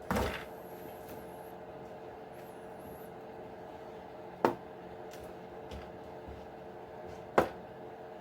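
Hands working on the parts of a radio-controlled truck: a brief scrape right at the start, then two sharp clicks about three seconds apart, over a steady background hum.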